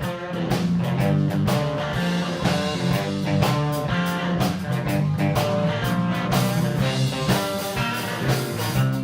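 Live blues band playing an instrumental passage: electric guitar over bass and a drum kit keeping a steady beat.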